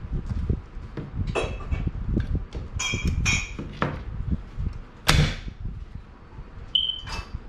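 Handling sounds from an E&L AKS-74U airsoft rifle as its top cover is worked and the battery taken out: a string of sharp clicks and metal clinks over low rustling, with one louder knock about five seconds in.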